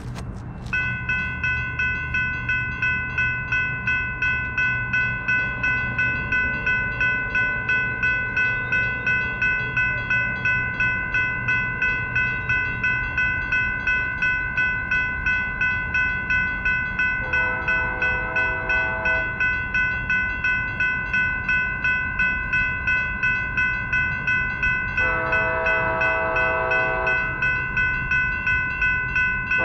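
Railroad crossing bell ringing steadily, a little over twice a second, as a train approaches. A locomotive horn sounds two long blasts over it, the first about halfway through and the second near the end.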